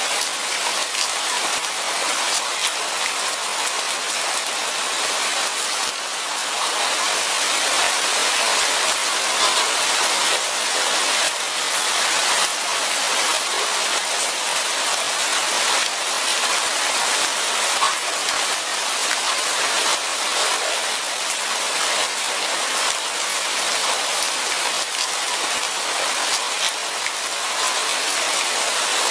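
Steady rain falling in a forest: a dense, even hiss of drops with faint individual patters scattered through it.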